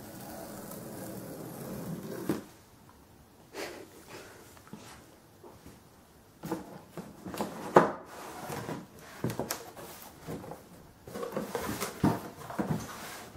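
Box and packaging being handled by hand: rustling and scraping, then a series of knocks and thumps, the loudest a sharp knock about eight seconds in.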